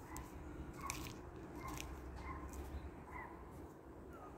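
A cat chewing dry cat food: faint, irregular crunches.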